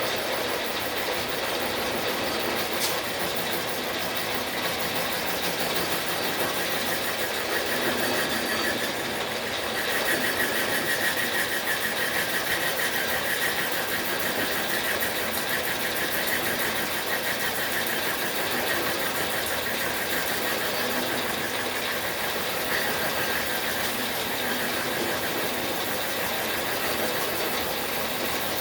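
Motor-driven cutter running steadily while it cuts a tooth in a thread-dial gear blank on a Logan lathe setup. A higher cutting tone sets in about ten seconds in and eases off later.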